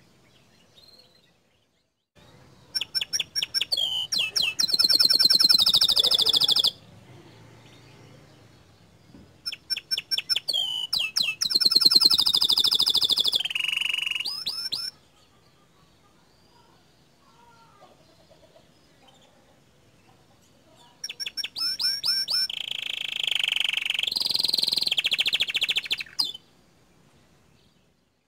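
Domestic canary singing in three long phrases with pauses between. Each phrase opens with a quick run of repeated sharp notes and rolls into a fast, dense trill. This is the rapid-fire 'tembakan' delivery that canary keepers use as a master song to provoke other canaries.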